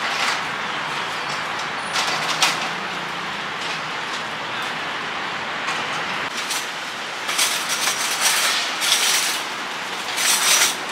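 Metal folding tables clattering in short bursts as they are opened out and set down, over a steady background rush.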